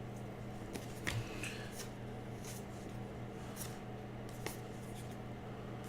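Trading cards being handled: a few faint rustles and slides of cardboard cards, over a steady low room hum.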